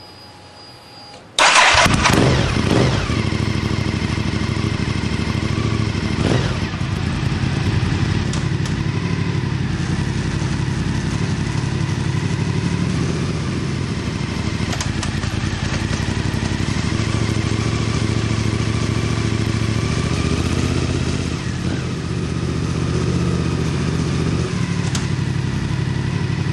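Honda VTR1000 SP2 sportbike's 90° V-twin engine starting suddenly about a second and a half in, revs settling after the catch, then running steadily on the rear stand.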